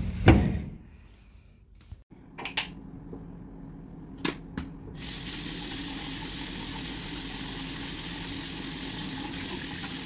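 A loud knock about a quarter second in and a few light clicks, then from about halfway a tap running steadily into a washbasin while water is splashed onto the face.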